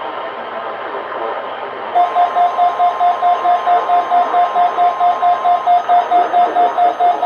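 Radio static hiss, then from about two seconds in, a weather radio's loud, rapid alert beeping, about four beeps a second. A faint steady tone runs beneath the beeps for about three and a half seconds, then stops. This is the alert tone of a weather radio weekly test.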